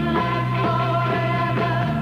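A 1960s-style pop/rock record playing, with a steady beat and bass line under a sung or held melody.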